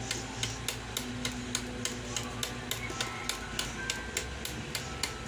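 Background music with a steady clicking beat, about three clicks a second, over held tones.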